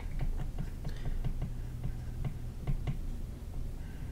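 Stylus tapping and clicking against a tablet screen while handwriting, several small irregular clicks a second, over a low steady hum.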